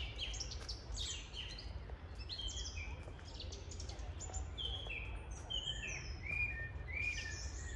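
Several songbirds singing at once: many short, overlapping whistled notes and chirps, over a steady low rumble.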